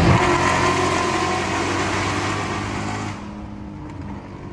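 Car engine and exhaust under throttle, heard from inside the cabin, the engine note slowly falling. About three seconds in, the rushing noise drops away and the engine eases off.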